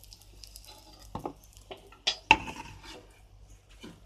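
Clinks and knocks of a metal wire-mesh skimmer on a kadhai and a plate as freshly fried mathri are lifted out of the oil and set down, the loudest knock about two seconds in.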